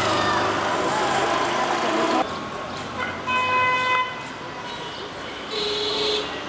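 Street traffic: a motor vehicle running close by for the first two seconds or so, then a vehicle horn sounding for about a second, and a shorter toot near the end.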